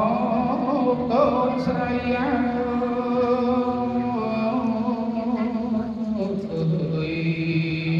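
A Khmer Buddhist monk's solo smot chanting, the melodic recitation of Buddhist verse, sung into a microphone. His male voice draws each syllable out into long held notes with slow wavering ornaments, and the line steps down to a lower pitch twice in the second half.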